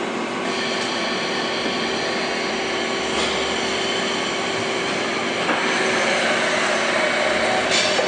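YOUJI YV1600 CNC vertical boring mill running, a steady machine noise with a steady hum, growing louder with a higher tone joining about five and a half seconds in.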